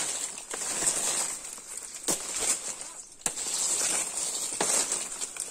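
Kelubi palm fronds and dry undergrowth rustling and crackling as someone pushes through the spiny thicket, with a few sharp snaps or knocks, over a steady high hiss.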